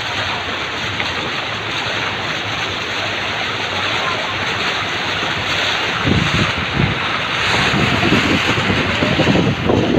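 Steady rushing noise, with wind buffeting the microphone in irregular gusts from about six seconds in.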